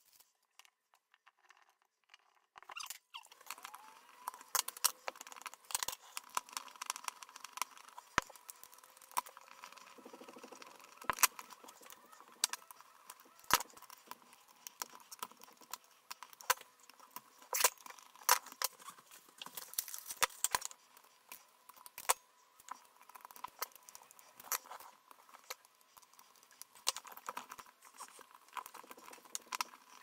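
A few seconds of near silence, then a long, irregular run of small clicks, ticks and rattles from hands working electrical wiring: a wire nut being twisted onto the conductors and a GFCI receptacle and its screws being handled. A faint steady whine sits underneath.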